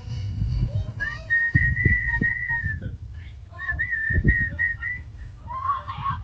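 A person whistling: one long, nearly steady high note held for about two seconds, then after a short break a second phrase that wavers and breaks up, over low thumps.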